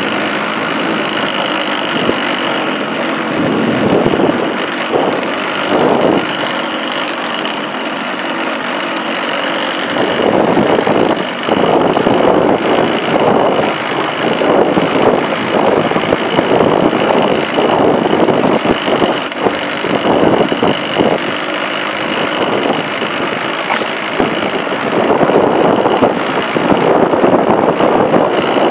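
Motorcycle engine running on the move over a rough dirt road, with wind buffeting the microphone in irregular gusts.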